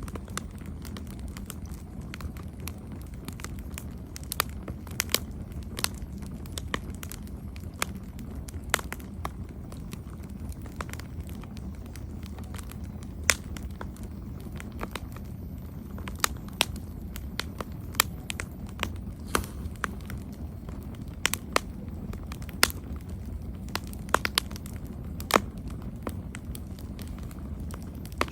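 Wood campfire burning, with irregular sharp crackles and pops over a steady low rush of the flames.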